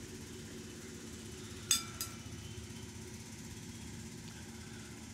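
A steel serving spoon clinks sharply against a ceramic bowl twice in quick succession, a little under two seconds in, with a short ring. A steady low hum runs underneath.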